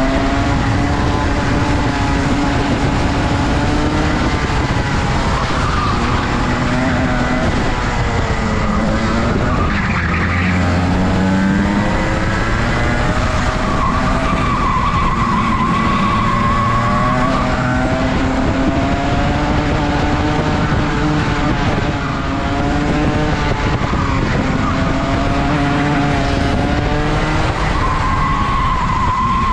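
Rotax two-stroke kart engine at racing revs, its pitch climbing and dropping back every few seconds as it accelerates and lifts, lap after lap.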